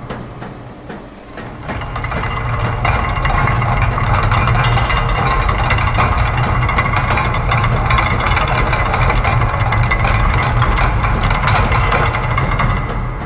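Layered loops of factory machine sounds, such as gears, ratchets, clockwork and a press, making a dense stream of fast clicks and ticks over a steady low hum. It swells up about two seconds in and falls away near the end.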